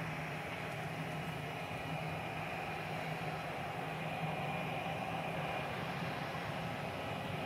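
Twin-engine jet airliner's turbofan engines at takeoff power during the takeoff roll, heard from a distance as a steady noise with a low hum and a faint whine, growing slightly louder over the last few seconds.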